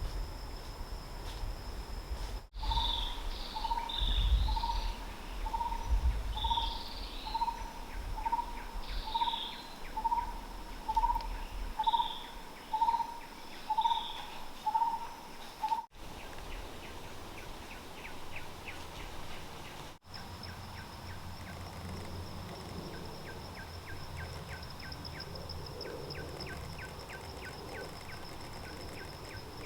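Wild hillside ambience in edited segments. For about thirteen seconds a bird repeats a single clear hoot-like note about once a second, while other birds chirp higher up. Elsewhere insects give a steady high-pitched buzz with rapid faint ticking.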